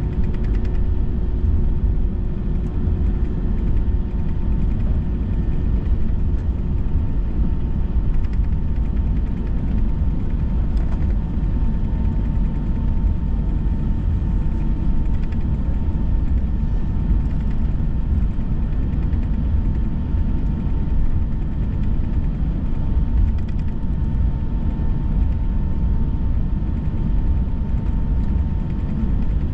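Steady cabin noise of an Airbus A321 airliner: a constant low rumble with a thin steady whine from the jet engines over it.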